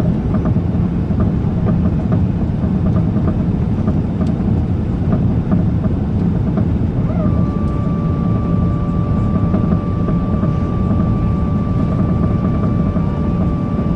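Airbus A380 noise: a steady low rumble with faint scattered ticks. About halfway through, a steady whine at one fixed pitch joins in and holds.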